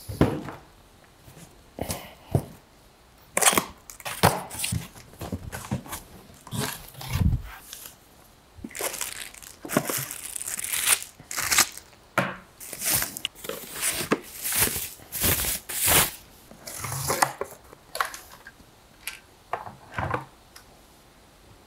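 Unboxing noises from a monitor's cardboard box and plastic packaging: irregular rustling, crinkling and tearing of plastic wrap and cardboard flaps as the parts are pulled out, with a dull thump about seven seconds in.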